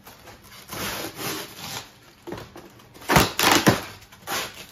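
Rigid spray-foam packing being pried and broken apart by hand. First comes a stretch of scraping and rubbing, then a cluster of sharp cracks and crunches about three seconds in, the loudest part, and one more just before the end.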